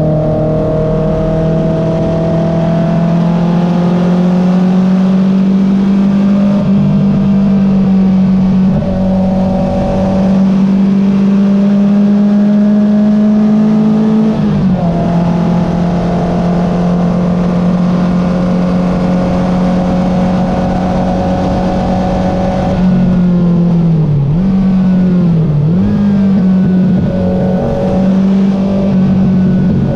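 Porsche 914 race car's engine under hard acceleration, heard from inside the open cockpit, its pitch climbing slowly through the gears with a sharp drop at an upshift about halfway. Near the end the pitch falls and jumps back up several times as the driver downshifts under braking with throttle blips.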